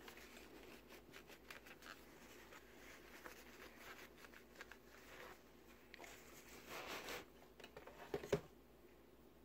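Faint handling noises as a small circuit board with an aluminium heatsink is turned over in the hands: scattered light clicks, a short rustle about seven seconds in, and a sharper knock about eight seconds in, the loudest sound.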